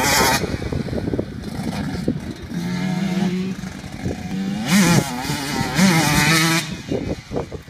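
KTM 150 SX two-stroke motocross bike's single-cylinder engine running and revving, with two sharp rising revs about five and six seconds in, then falling off and fading near the end as the bike moves away.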